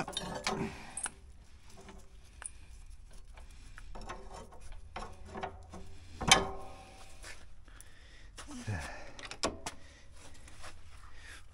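Scattered clanks and knocks of a water-tank trailer's steel drawbar and support foot being handled by hand, with one loud knock about six seconds in.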